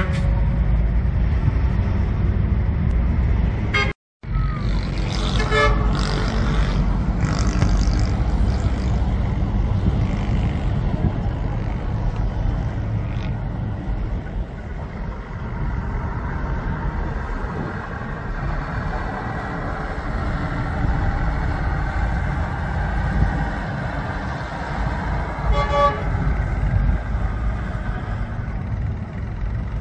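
Large diesel coaches running and manoeuvring, a steady heavy engine rumble, with pulsing horn toots a few seconds in and again near the end.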